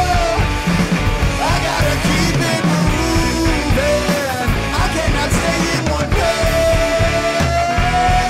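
Rock music from a full band with drums, and a held melody line that bends in pitch; a long sustained note begins about six seconds in.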